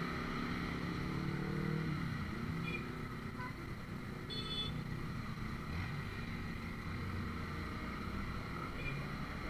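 Honda CBR150R's single-cylinder engine running at low speed in slow city traffic, the revs dropping about two seconds in as the bike slows. A brief high-pitched beep sounds about halfway through.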